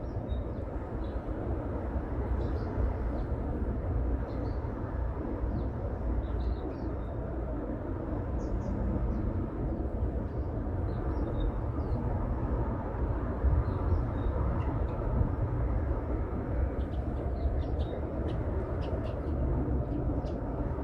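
Birds chirping in short, high calls scattered throughout, more often near the end, over a steady low rumble.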